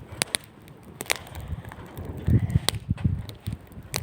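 Wood bonfire crackling, with sharp irregular pops and snaps throughout and a low rumble in the middle.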